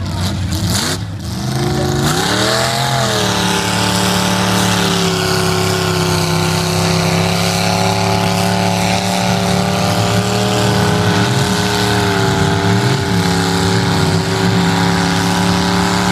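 A lifted mud truck's engine at high revs as it powers through a mud pit. The pitch climbs about two seconds in and is then held high and nearly steady, wavering slightly as the tires churn through the mud.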